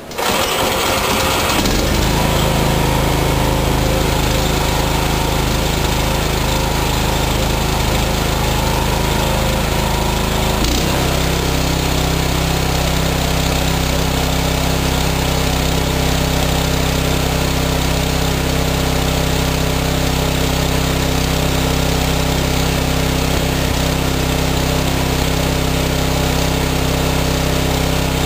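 New 16 hp PowerMax small engine running steadily and fast, at about 4,000 rpm against its 3,600 rpm maximum: its governor is set too fast as it came out of the box. The engine note changes once, about ten seconds in.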